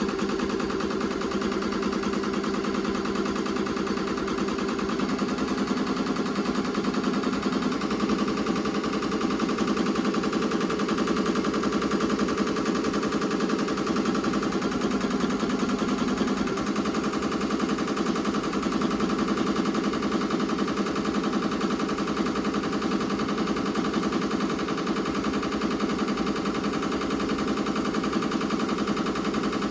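Ricoma MT 2002-8S multi-needle embroidery machine stitching lettering into a terry kitchen towel: a fast, steady needle rattle that runs on at an even pace.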